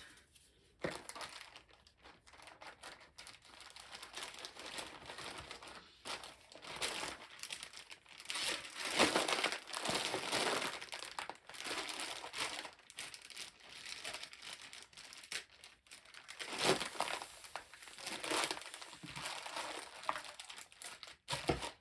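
Packaging crinkling and rustling as it is handled, in irregular spells, loudest about nine to eleven seconds in and again around seventeen seconds.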